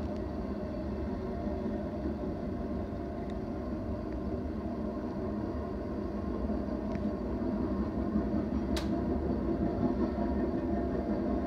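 BNSF intermodal freight train's cars rolling past, a steady rumble of wheels on rail that swells slightly in the second half, with one sharp click late on.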